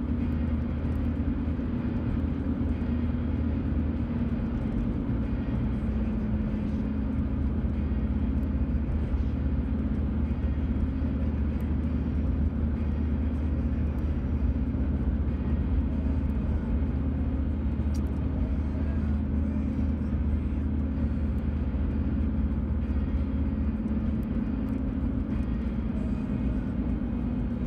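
Steady low hum of a car driving, heard from inside the cabin: engine and tyre noise running evenly with no change in speed.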